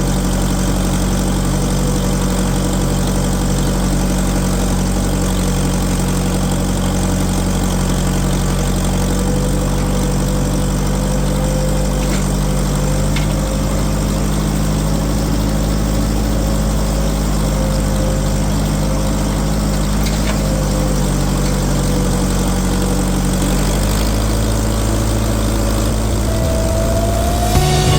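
A large farm machinery engine running steadily at constant speed, with a faint whine above it. The engine note shifts slightly about three-quarters of the way through, and the whine rises near the end.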